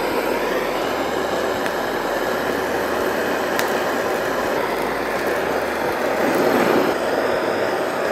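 Handheld gas torch burning with a steady hiss as its flame chars the skin of a red bell pepper black.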